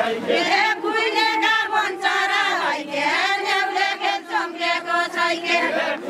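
A group of women's voices singing a Deuda folk song together, a chant-like melody carried in unison by the dancing line.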